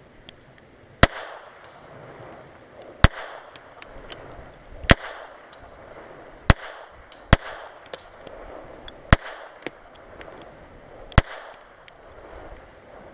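Seven shots from a small .32 pistol at an irregular pace, one to two seconds apart, each crack followed by a short echo.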